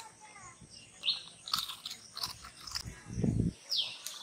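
Dog crunching and chewing a crisp snack taken from a person's hand, in short crackly bites. Small birds give a few short falling chirps, and a low rumble comes about three seconds in.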